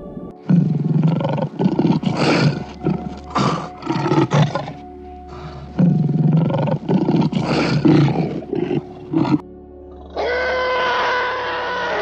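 Tiger roaring and growling in two bouts of several rough calls each, over background music. Near the end a steady held pitched tone takes over.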